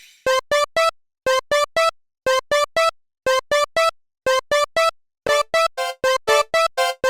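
Electronic railroad-crossing-style bell tones alternating between two pitches, struck in quick groups of four about once a second. A second set of tones at different pitches joins about five seconds in, clashing with the first.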